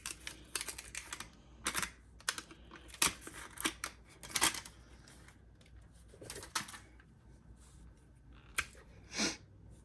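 Irregular clicks, taps and short rustles of packaging and small accessories being handled by hand, as a power adapter and its cable are taken from the box.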